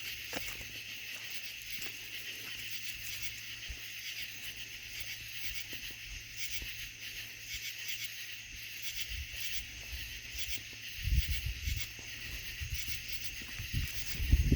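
A steady night chorus of crickets chirring without a break. There are low thumps a little past two-thirds of the way in and again near the end.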